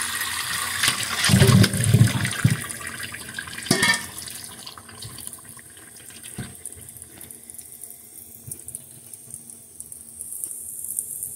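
Kitchen tap running onto potatoes being washed by hand in a stainless steel bowl and sink, with water splashing and a few knocks about two seconds in. After about four seconds the flow continues more quietly.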